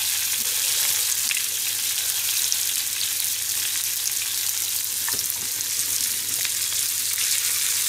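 Chicken liver pieces sizzling in oil in a frying pan as they sear, with a few light clicks as chopsticks turn them against the pan.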